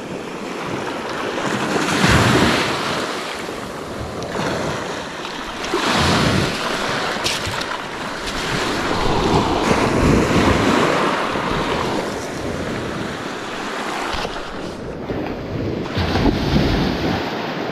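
Baltic Sea surf washing onto the beach, waves breaking and receding in slow swells every few seconds, with wind on the microphone.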